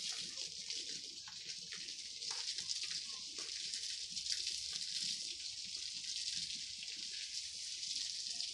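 Garden hose spraying water onto a flower bed: a steady hiss of spray with scattered small splashes.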